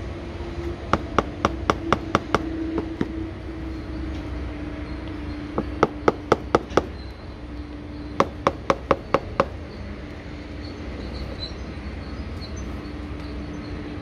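A cow horn knocked against a metal bowl to shake out the fermented cow-dung manure of biodynamic preparation 500: three quick runs of five or six sharp knocks, about five a second. A steady low hum runs beneath.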